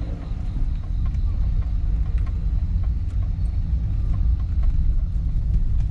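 Car driving slowly, a steady low rumble of engine and tyres heard from inside the cabin.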